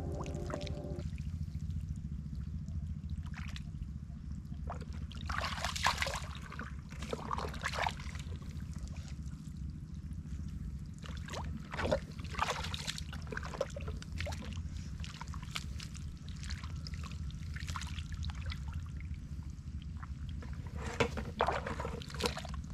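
Boots squelching and sloshing through deep, wet mud and shallow water, in irregular splashes and sucking steps, over a steady low rumble.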